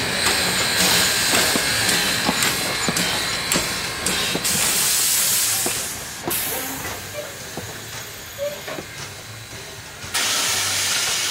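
Steam locomotive PB15 448 hissing steam with scattered clicks and knocks, then two louder bursts of hiss: one about four seconds in and one near the end.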